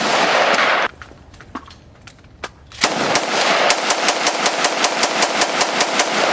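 Rapid gunfire: a loud stretch of firing that stops about a second in, a couple of single shots, then from about three seconds an evenly spaced run of shots, roughly five a second, the fast cadence of a bump-fired semi-automatic rifle.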